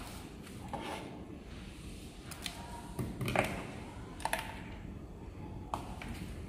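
Cables, plugs and scissors being handled and set down on a metal tabletop: a few light, scattered clicks and taps over faint room noise.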